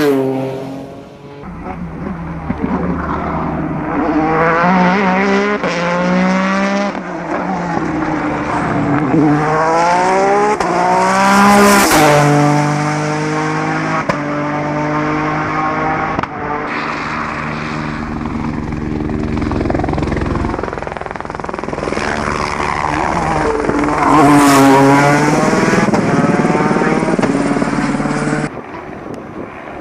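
Peugeot 208 T16 Pikes Peak race car's twin-turbo V6 accelerating hard, its pitch climbing through the gears and dropping at each quick upshift. It is loudest as the car passes close twice, about twelve seconds in and again near twenty-four seconds.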